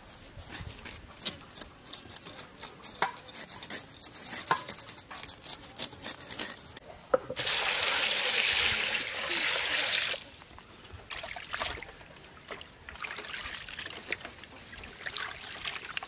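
Water pouring out in a loud, steady stream for about three seconds, starting about seven seconds in and stopping sharply. It is set among light clicks and knocks of handling.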